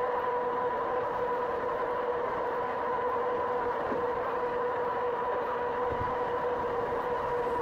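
2018 RadRover electric fat-tire bike cruising at steady speed on pavement: a steady whine from its hub motor and tyres over road and wind noise.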